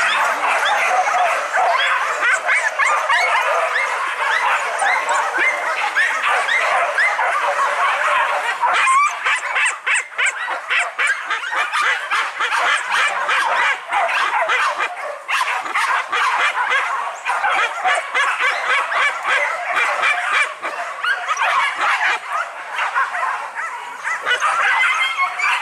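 A pack of many hunting dogs barking and yelping at once, a dense, continuous clamour of overlapping high yelps that thins out briefly a few times.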